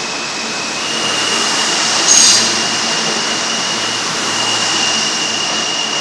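R160A subway train moving along the station platform: a steady rumbling run with a high whine that steps up a little in pitch about a second in, and a brief sharp squeal just after two seconds.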